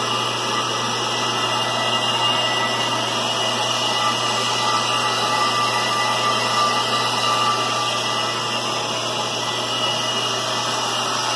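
Ammco bench brake lathe running steadily on a slow finishing cut, its bits shaving rust from the face of a spinning brake rotor: an even whirring hiss over a steady low hum.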